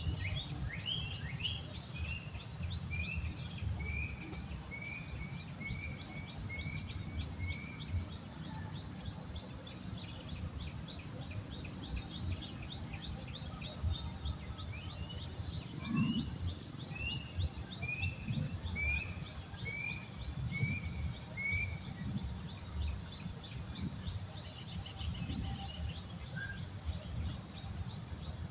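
A steady high-pitched insect drone, with a bird calling in two runs of about a dozen short chirps that step down in pitch, over a low background rumble.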